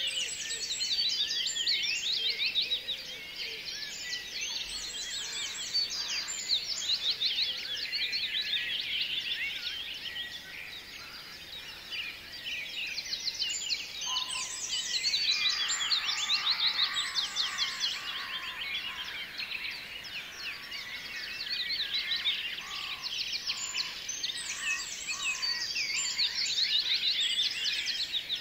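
A dense chorus of many small birds chirping and twittering together, swelling and easing in waves.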